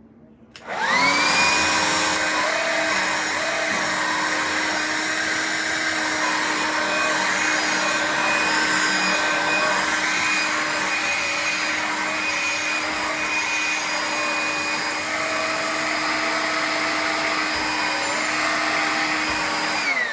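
Hoover Linx cordless stick vacuum's motor switching on about half a second in, whining up to speed and running steadily, then winding down as it is switched off at the very end. The owner says this motor ticks and smells like it is burning, which he takes for a failing motor.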